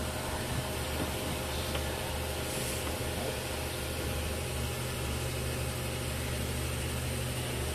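A motor or engine running steadily: a continuous low hum with a faint steady tone above it.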